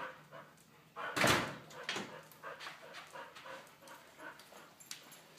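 A dog making noises: one loud, short bark about a second in, then softer short sounds.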